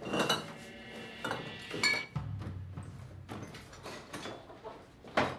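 Glass jars and bottles on kitchen shelves clinking and knocking as they are moved during a search. There are a few sharp clinks: one about two seconds in that rings briefly, and the loudest near the end.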